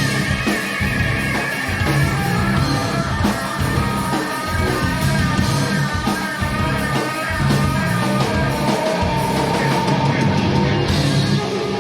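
Stoner rock band playing live: electric guitars, bass and drums in a steady, heavy groove, with sustained guitar notes held over the top.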